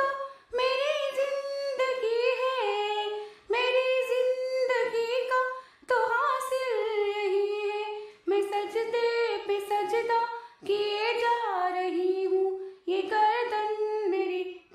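A woman singing a naat melody without accompaniment, in six phrases of about two seconds each, with short breaths between them. The melody is wordless, hummed or vocalised, and each phrase steps downward in pitch.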